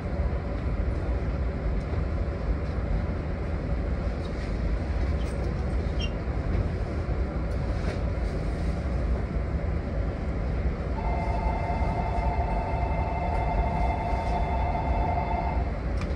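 A 115-series electric train standing at a platform with its machinery running in a steady low hum, heard in the cab. About eleven seconds in, a steady tone of several pitches sounds for about four and a half seconds, then stops.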